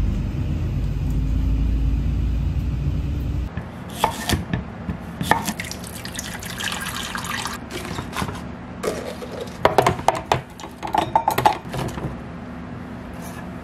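A steady low vehicle rumble that cuts off about three and a half seconds in, followed by clicks and knocks of ingredients going into a plastic blender jar and liquid being poured into it.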